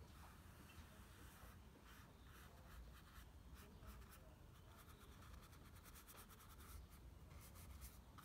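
Faint scratching of a paintbrush laying wet dark paint onto paper in a series of short strokes.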